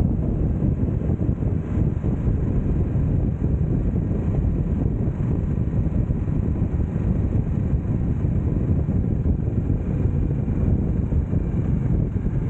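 Harley-Davidson Nightster 975's liquid-cooled V-twin engine running steadily at highway cruising speed, mixed with wind noise on the microphone.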